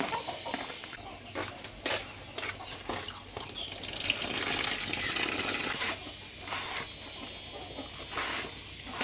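Chickens clucking among scattered knocks, with a stretch of splashing or running water from about three and a half to six seconds in.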